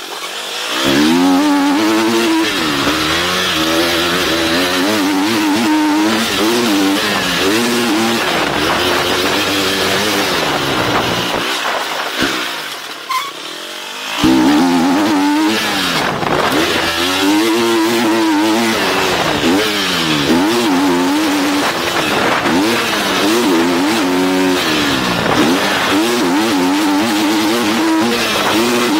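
GasGas motocross bike engine under hard riding, its pitch repeatedly climbing and falling as the rider works the throttle through the gears. About twelve seconds in the throttle closes and the engine drops off for roughly two seconds, then picks up sharply again.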